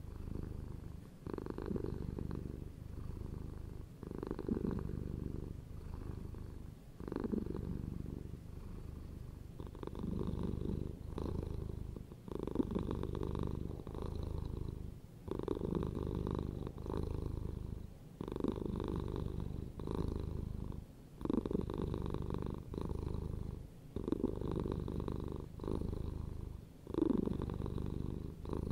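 A domestic cat purring close up, a continuous low rumble that swells and eases with each breath, about one cycle every two seconds.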